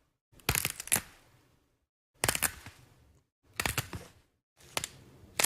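Four groups of sharp mechanical clicks, each group two or three quick clicks, repeating about every second and a half with silence between.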